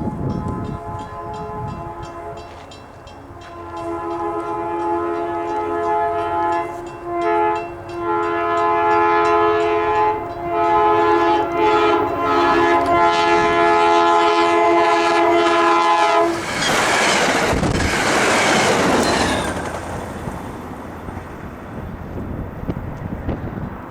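A passing diesel passenger train's multi-chime air horn sounds several blasts, ending in one long held blast. It cuts off to a loud rush of noise as the train goes by.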